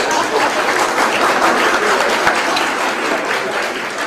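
Audience applauding: many hands clapping at once, slowly dying down toward the end.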